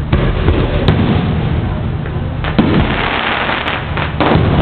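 Aerial fireworks shells bursting in the sky: about half a dozen sharp bangs over a few seconds, several coming in quick succession near the middle and end.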